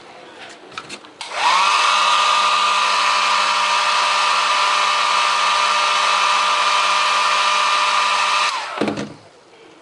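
Small handheld hair dryer switched on about a second in, its motor whining up to speed and blowing steadily for about seven seconds, then switched off and winding down. A few light handling clicks come before it starts.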